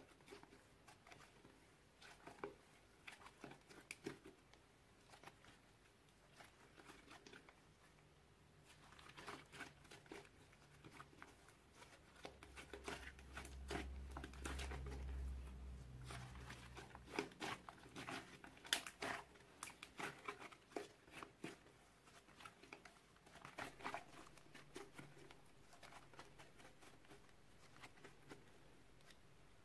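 Glue slime mixed with clay being kneaded, squeezed and folded by hand: a quiet, irregular run of small clicks, pops and squelches, busiest in the middle, with a brief low rumble partway through.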